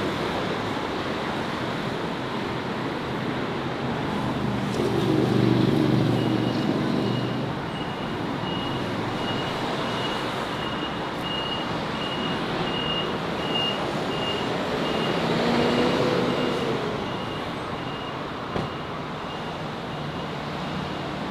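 City road traffic with tyres hissing on wet pavement, two passing vehicles swelling louder with engine noise about five and fifteen seconds in. From about six seconds in, a high beep repeats about twice a second.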